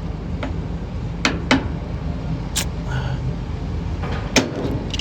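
A few sharp clicks and knocks of hand tools and parts as a washing machine's drain-pump hose clamp is worked on, over a steady low hum.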